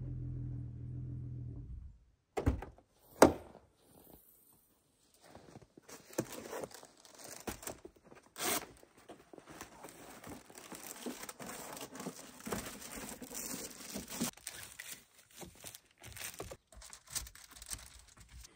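A low engine hum for the first two seconds, then two sharp knocks about a second apart, the second very loud. After that comes a long stretch of rustling and crinkling as bags and gear are handled in the minivan's open cargo area.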